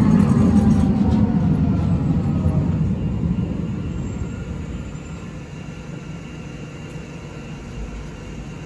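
Alstom Citadis tram pulling in and braking to a stop at close range: a rumble with a falling electric motor whine that fades as the tram comes to a halt.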